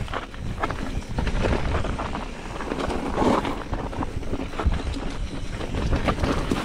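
Mountain bike descending a rocky, rutted trail: tyres and frame rattling over stones in frequent short knocks, with wind rumble on the camera microphone.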